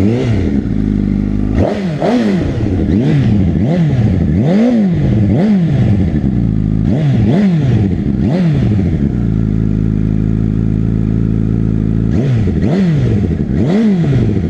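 Honda CBR1000RR's inline-four engine blipped repeatedly from idle, each rev rising and falling quickly, through an Akrapovič silencer run without its dB killer. The blips stop for a few seconds of steady idle in the second half, then resume near the end.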